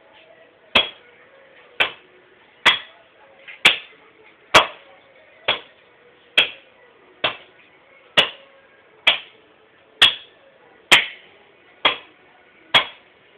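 Axe chopping wood: sharp, evenly paced blows a little under one a second, about fourteen in all.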